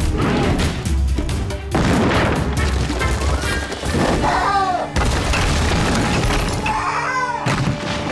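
Cartoon rockslide: boulders rumbling and crashing down a cliff in several loud surges, over dramatic background music. A pterodactyl squawks a few times in short falling calls.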